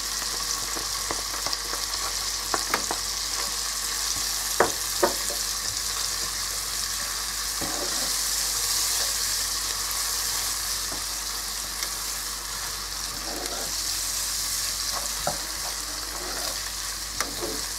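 Onions and peas with tomato paste sizzling in oil in a frying pan, with a steady hiss. A wooden spatula stirs through them, giving a few sharp knocks and scrapes against the pan.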